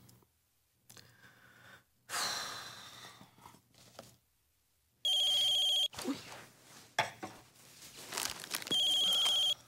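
Phone ringing with an electronic ring tone, heard twice: once about five seconds in and again near the end.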